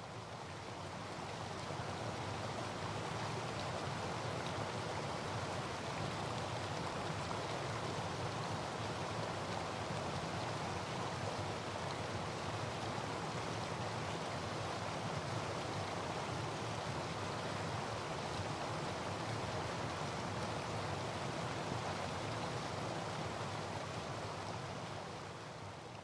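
Steady rushing of flowing water, without tone or rhythm, fading in at the start and fading out near the end.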